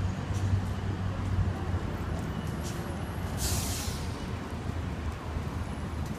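City street traffic: a vehicle engine's low, steady rumble, strongest in the first two seconds, with a brief hiss about three and a half seconds in.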